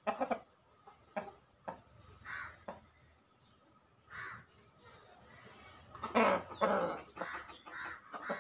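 Rooster held in the arms giving a series of short calls and clucks, the loudest and longest about six seconds in.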